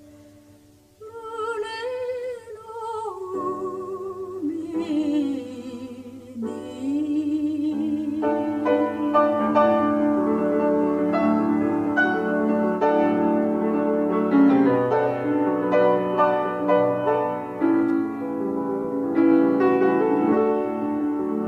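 A woman singing the song's melody with a strong vibrato, the line falling in pitch. About eight seconds in, a piano enters with full chords and carries on as the song's accompaniment.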